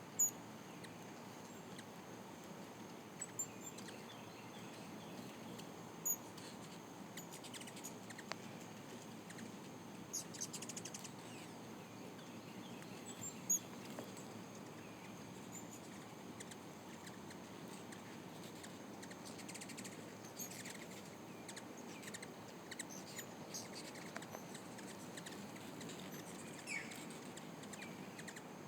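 Hummingbirds at feeders giving short, high chips and squeaks, scattered irregularly, over a faint steady hiss.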